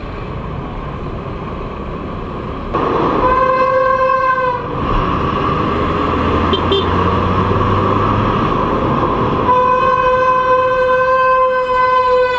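Bus brakes squealing loudly, a steady horn-like tone. One squeal starts about three seconds in and lasts nearly two seconds; a second starts near ten seconds and runs on, dipping slightly in pitch near the end, over traffic noise.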